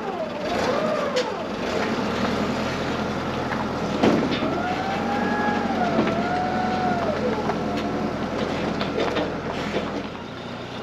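An engine running, its revs rising and falling in smooth swells, with a sharp knock about four seconds in.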